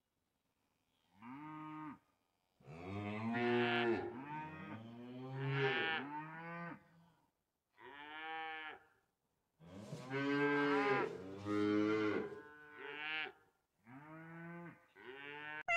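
Cows mooing: a series of about eight long lowing calls, one after another, starting about a second in.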